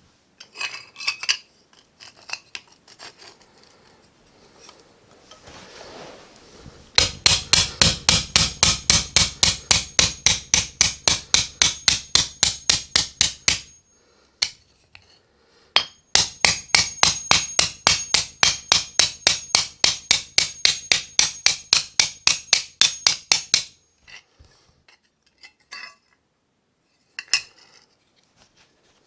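Claw hammer striking a sheet-metal tab on a small anvil to bend it over at 90 degrees. There are two long runs of quick blows, about four or five a second, each with a high metallic ring, with a few light metal clinks of handling before and after.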